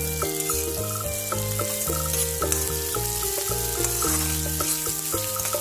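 Sliced onion, garlic and ginger sizzling in hot oil in a wok as a spatula stirs them, with background music playing over it.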